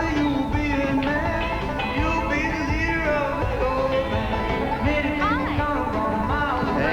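Country-style band music with plucked string instruments and a melody that slides in pitch.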